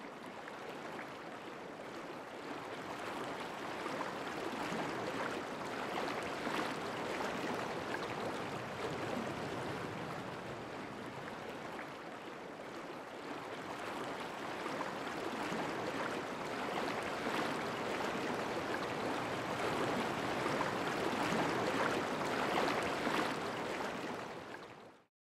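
Running water, like a river flowing: an even rushing that swells and eases slowly, then cuts off near the end.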